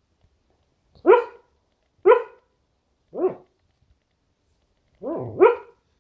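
A dog barking in its sleep: three short barks about a second apart, each rising in pitch, then two more run together near the end, the second of them the louder.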